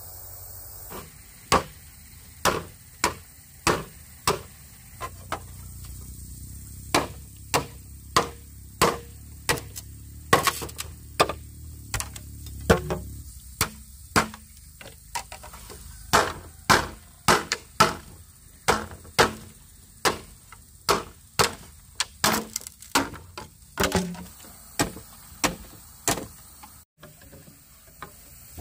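A hand tool striking over and over at a steady working pace, a little more than one sharp knock a second, some landing in quick pairs.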